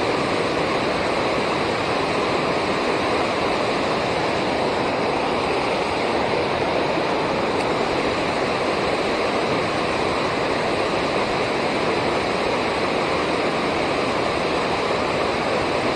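Steady rush of river water pouring over a dam, even and unbroken throughout.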